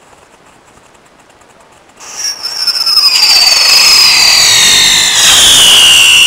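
Whistling firework: faint sputtering, then about two seconds in a loud shrieking whistle over a hissing spray of sparks. The whistle's pitch falls steadily as it burns.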